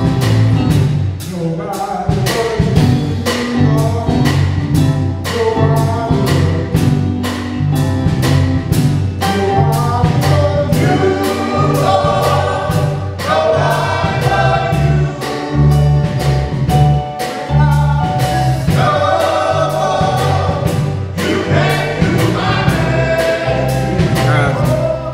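Male gospel vocal group singing in harmony, backed by a band with a bass line and a steady drum beat.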